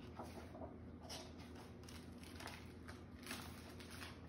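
Faint rustling of a picture book's pages being turned and handled, a few brief soft swishes.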